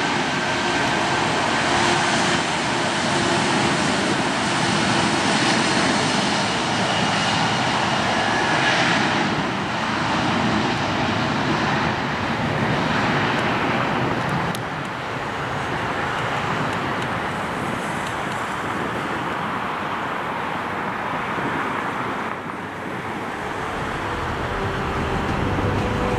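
Boeing 757-200's two Rolls-Royce RB211-535E4B turbofans at takeoff power during the takeoff roll. It is a steady jet roar, with a high whine over it in the first several seconds, and it eases slightly about halfway through.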